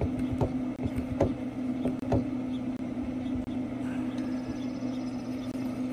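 Hand-pumped 8-ton hydraulic wire crimping tool swaging a stainless steel fitting onto 1/8-inch cable: a few sharp clicks from the pump handle, about one a second, in the first two seconds. A Traeger pellet grill hums steadily underneath throughout.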